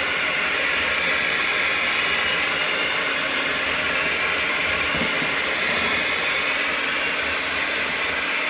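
Electric mixer running steadily at a constant speed, its beaters blending sugar, eggs and shortening in a mixing bowl.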